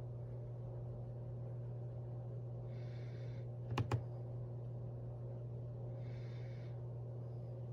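Two sharp clicks in quick succession a little before the middle, a mechanical keyboard key pressed and released, over a steady low electrical hum, with soft hissy puffs about every three seconds.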